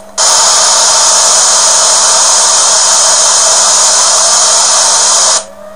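Loud, steady hiss of static noise that starts abruptly and cuts off suddenly after about five seconds: the noise that has replaced the original soundtrack of the uploader's video.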